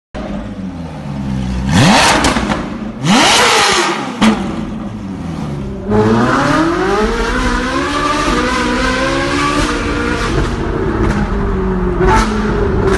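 Ferrari 458 Italia's V8 engine revved sharply twice, the pitch shooting up and falling back each time. Then it pulls hard under acceleration, the engine note climbing steadily for several seconds and levelling off, with a short blip near the end, heard from inside the cabin.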